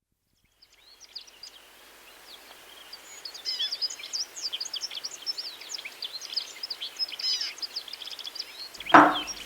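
Sound-effect ambience of many small birds chirping rapidly over a steady hiss, fading in; about nine seconds in, a single loud thump cuts across it.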